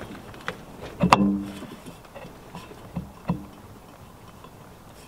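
Knocks and clunks from a washing machine's direct-drive motor rotor being wiggled and pulled by hand, held back by its ring of magnets. A sharp knock with a short ring about a second in, another a little after three seconds, and a few lighter clicks.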